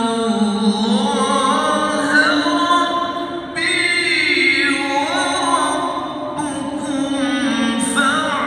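A male qari reciting the Quran in the melodic tilawah style, holding long notes that slide and waver through ornamented turns.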